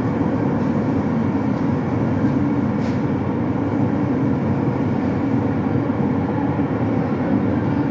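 A steady low mechanical rumble runs without a break.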